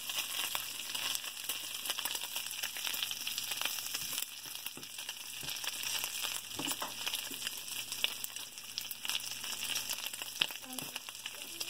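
Bacon frying in a stainless steel skillet: a steady sizzle thick with fine crackles of spitting fat.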